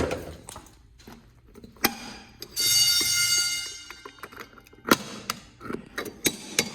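A fire alarm horn gives one short, steady blast of about a second and a half, midway through, as the pull station under test trips the system. Sharp clicks and knocks come before and after it, with a loud one at the start and another about five seconds in.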